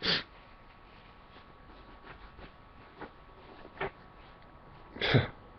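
A man sniffling through a runny nose: short, sharp sniffs right at the start, about four seconds in and about five seconds in, with fainter breaths between.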